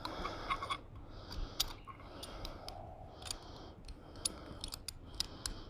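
Footsteps crunching on dry forest-floor leaves and twigs, with irregular sharp snaps and clicks between the crunches.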